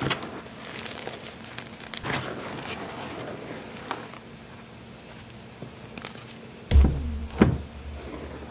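Hands digging into and crumbling powdered gym chalk, a soft, crumbly crunching with scattered small crackles. Two heavier thumps come about two-thirds of the way through.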